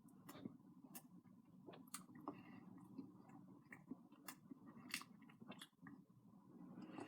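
A person chewing a double cheeseburger close to the microphone: soft, irregular mouth clicks and smacks.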